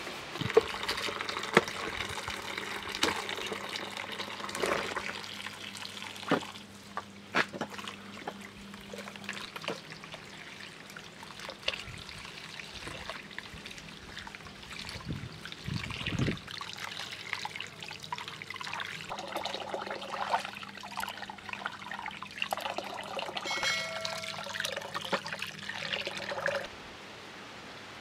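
Water poured from a jug into a metal samovar, then tap water running and splashing into a plastic basin as cucumbers are rinsed by hand. A faint steady hum runs underneath.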